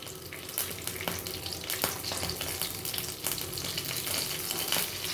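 Tempering of mustard seeds, cumin, a dried red chilli and freshly added curry leaves sizzling in hot oil, with many sharp crackles and pops scattered through.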